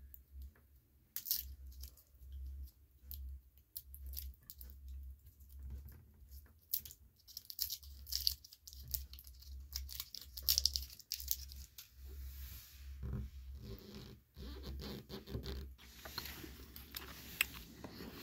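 Starburst chew's wax-paper wrapper being picked open and unwrapped by fingers: a long run of small crinkles, crackles and ticks, busiest in the second half.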